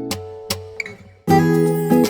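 Background music: acoustic guitar chords ringing and fading, with a short break just after a second in before the next chord is strummed.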